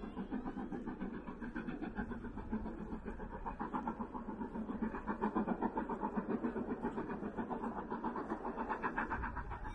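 Steam locomotive hauling its train, the exhaust chuffing in a fast, steady rhythm.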